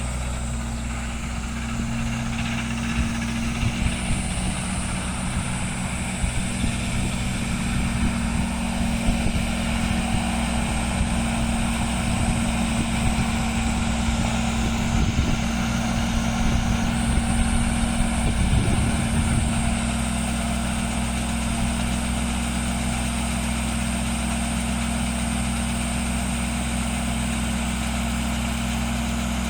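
John Deere tractor's diesel engine running at a steady pitch, with a thin high whine over it. Irregular knocking and clattering come in about two seconds in and stop about twenty seconds in.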